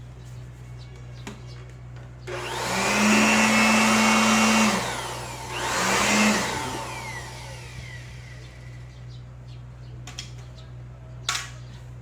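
Small handheld vacuum cleaner run in short bursts while cleaning a keyboard: it runs about two and a half seconds, stops, then runs again briefly. A couple of sharp clicks follow near the end.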